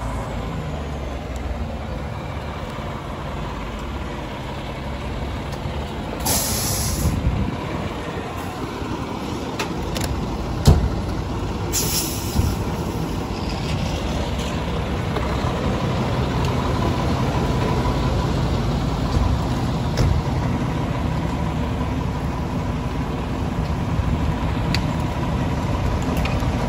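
Fire engine running close by, with two loud hisses of its air brakes, about six and twelve seconds in, and a sharp thump near eleven seconds.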